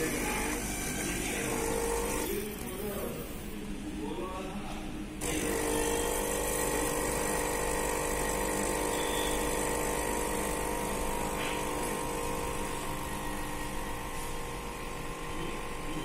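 Whirlpool built-in fully automatic coffee machine brewing the espresso for a cappuccino: about five seconds in, its pump starts a steady, even hum that carries on while coffee pours into the cup of frothed milk.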